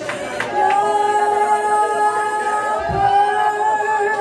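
Voices singing long, steady held notes together, a wordless sustained chord, with a brief low thump about three seconds in.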